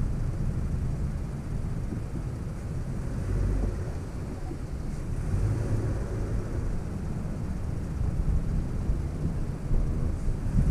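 2021 Toyota Tacoma TRD Off Road's engine running under load while its tires struggle for traction in loose dirt on a climb, heard as a low, uneven rumble through a hood-mounted camera.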